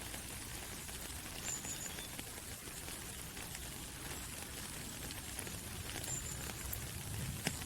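Steady rain falling through trees, a soft even hiss with many single drops ticking on leaves and one sharper drop near the end. Two short high chirps, about a second and a half in and again about six seconds in.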